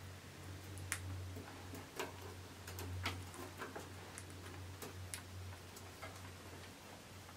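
Faint regular ticking, about once a second, over a low steady hum in a quiet room.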